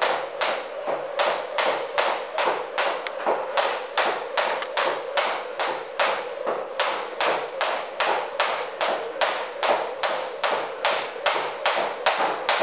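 Skipping with a jump rope on a wooden floor: a steady run of sharp taps, about three a second, as the rope strikes the floor and the feet land on each turn.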